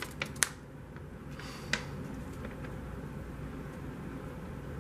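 A few light clicks and a brief rustle of packaging being handled, mostly in the first two seconds, then steady low room noise.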